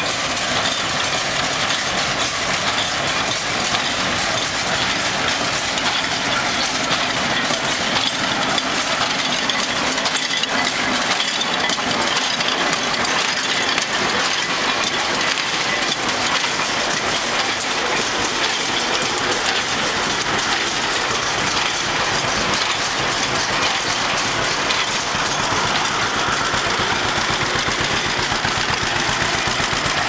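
International 428 small square baler running behind a John Deere Model B tractor: a steady, dense mechanical clatter from the baler's moving parts over the tractor's two-cylinder engine running.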